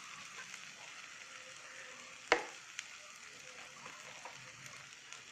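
Onion and tomato masala sizzling quietly in a frying pan, with one sharp knock against the pan about two seconds in and a lighter tick just after.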